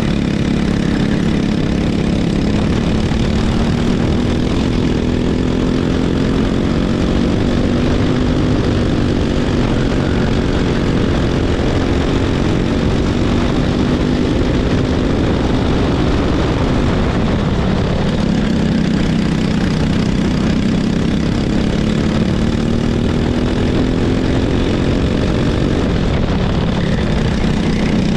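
Racing kart engine at full race pace, heard from on board. Its pitch climbs steadily for several seconds at a time as it pulls through the gears-less drive on the straights, then drops sharply twice, about two-thirds of the way through and again near the end, as it slows for corners.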